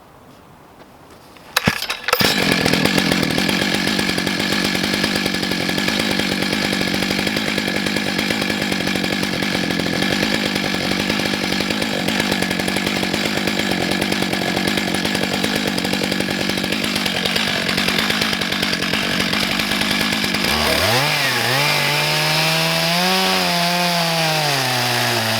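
Stihl MS661 two-stroke chainsaw on a 36-inch bar, running at a steady high pitch as it mills lengthwise through a log. It comes up to speed about two seconds in. Near the end the engine note drops sharply, then rises and wavers up and down.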